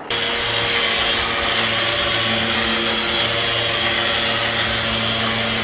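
Electric power sander working on a boat's hull bottom, running steadily together with its dust-extraction vacuum: an even motor hum and whine under a loud rush of air.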